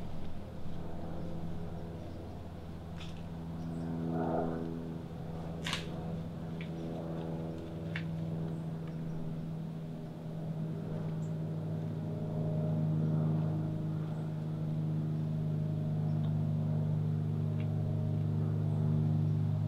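A steady low mechanical drone like a running engine, with fainter higher tones above it that shift and come and go. A few sharp clicks fall in the first half.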